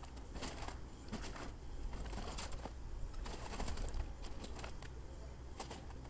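Excavator demolishing a brick building: a rapid, irregular jumble of clicks and knocks over a steady low rumble.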